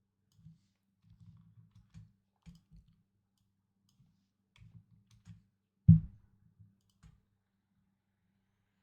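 Faint computer keyboard typing and clicks in irregular clusters, with one louder knock about six seconds in.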